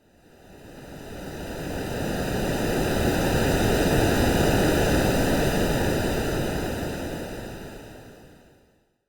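Ocean-wave sound for sleep, made by AI: one swell of rushing noise that rises out of silence, peaks about halfway through and fades back to silence. It has an evenly banded, filtered quality rather than the irregular wash of a real wave.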